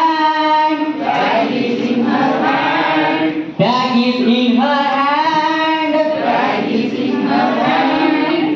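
A group of adults singing a simple children's song together in unison, in sustained sung phrases with a short break about three and a half seconds in.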